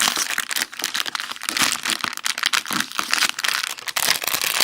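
Plastic packaging being crinkled and torn open: a dense, continuous crackling as a wrapped pack of small plastic containers is unwrapped.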